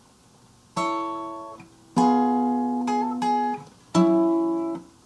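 Acoustic guitar playing a song's opening: three chords, about one, two and four seconds in, each left to ring and fade, with a couple of single picked notes between them.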